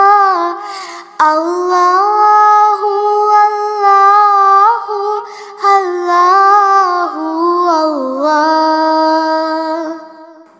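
A high voice singing a nasheed unaccompanied, in long held and gliding melodic phrases, with short breaks about a second in and around five and a half seconds, fading out near the end.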